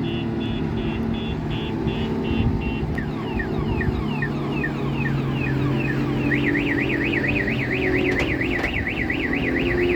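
Dump truck's reversing alarm cycling through its patterns: a run of quick beeps, then falling swoops about twice a second, then a fast up-and-down warble from about six seconds in, over the truck's engine running.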